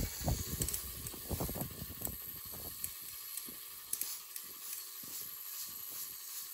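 Light clicks, taps and rubbing from hands handling and turning a brass rotary tattoo machine, scattered irregularly over a faint steady hiss.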